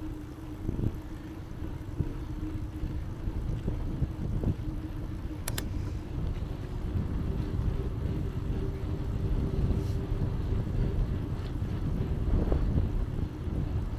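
Bicycle riding noise picked up by a handlebar-mounted camera: a steady low rumble of tyres rolling with a faint steady hum, and a sharp double click about five and a half seconds in.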